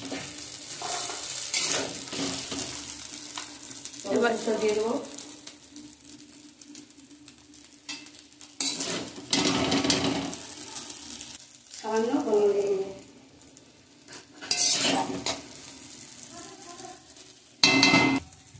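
Chow mein noodles sizzling as they are stir-fried in an aluminium wok, with the metal spatula scraping and clanking against the pan every few seconds. The loudest clank comes near the end.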